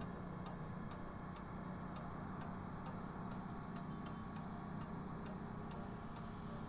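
Faint, regular ticking about twice a second over a steady low hum.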